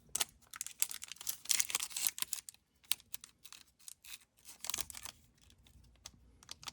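Plastic wrapper of a trading card pack crinkling and crackling as it is cut and pulled open, a quick run of crackles for the first couple of seconds, then scattered crackles.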